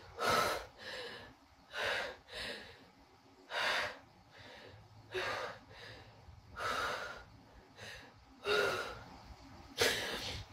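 A woman crying, sobbing with loud gasping, sniffling breaths, about one every second.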